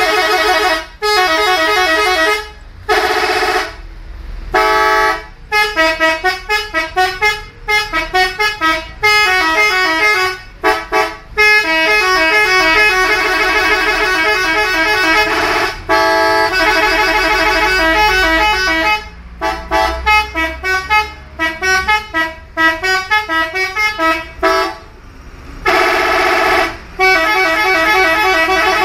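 Five-trumpet telolet horn played by hand, sounding quick runs of short horn notes that jump in pitch, several notes at once, with longer held chords and a few short breaks between phrases.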